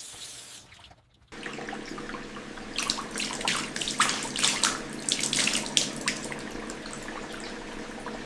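Water running from a faucet into a sink, with a brief dropout about a second in. A spell of sharp splashing follows in the middle before it settles to a steady flow.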